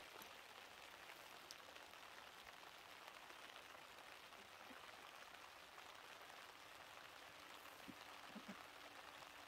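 Rain falling, a faint steady patter.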